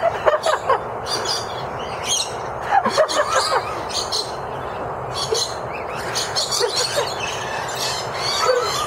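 A flock of small birds chattering and chirping at close range, many short high calls overlapping, with louder flurries of calls a few times over a steady background hiss.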